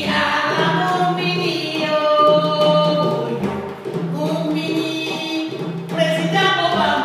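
A group of voices singing a West African song together over drumming, the singing starting right at the beginning.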